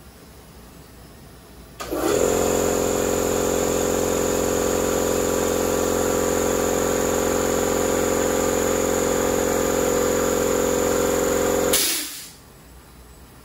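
A machine starts suddenly and runs with a loud, steady hum made of several fixed tones, then cuts off about ten seconds later with a short hiss.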